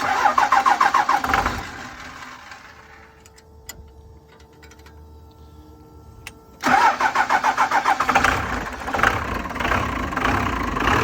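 A 12-valve Cummins diesel cranking on its starter on its first start after new injectors were fitted. A short crank at the start stops after about a second and a half; about seven seconds in it cranks again and the engine catches and keeps running.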